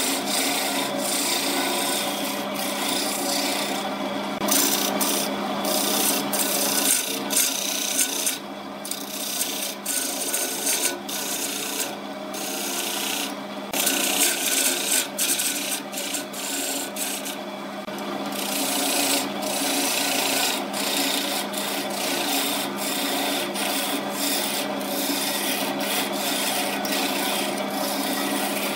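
Wood lathe running with a turning tool cutting into the spinning wooden vase blank: a steady motor hum under a continuous hissing, scraping cut, with a few brief breaks where the tool eases off the wood.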